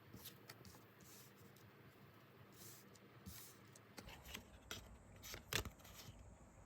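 Faint scraping and small clicking handling noises, growing busier in the second half, with the sharpest click about five and a half seconds in.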